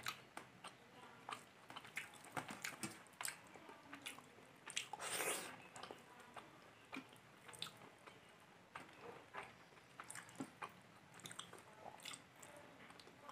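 Faint eating sounds: fingers picking fish and rice off a steel plate, and chewing with small mouth clicks and smacks. One longer, louder noisy sound comes about five seconds in.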